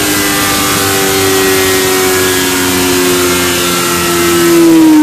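2008 Honda CBR1000RR's inline-four engine running at high revs on a motorcycle dyno through a Taylormade Racing exhaust. The note is loud and held high, easing slightly down, then beginning to drop near the end.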